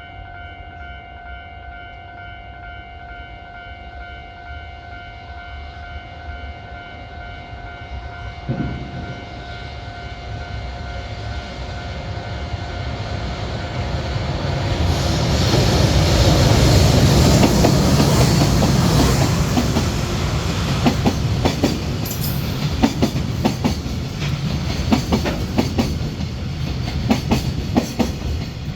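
EH500 electric freight locomotive hauling a container train approaches and passes, its rumble building to loudest about halfway through. After it passes comes a steady run of rhythmic wheel clicks over the rail joints as the container wagons roll by.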